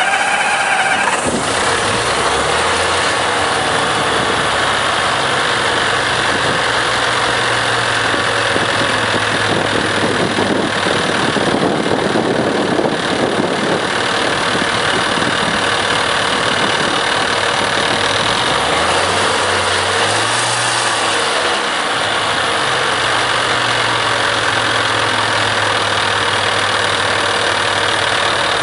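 Heuliez GX417 natural-gas city bus engine running just after a hard start. The low engine note climbs and settles into a steady idle in the first few seconds, rises briefly about 19 seconds in, then drops back, over a steady hiss.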